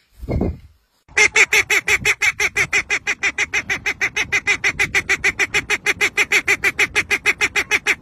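A white domestic duck quacking in a fast, even run of loud quacks, about seven a second, which cuts off abruptly at the end. Just before the quacking starts, a short low coo from a dove.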